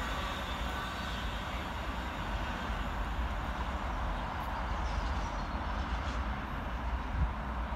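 Container freight train's wagons rolling away down the line, a steady rumbling noise as the tail of the train recedes.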